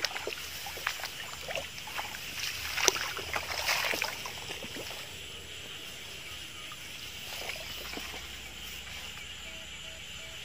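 Rustling, crackling and light splashing from someone wading through wet grass and shallow field water, busiest in the first few seconds. Behind it runs a steady high chorus of frogs.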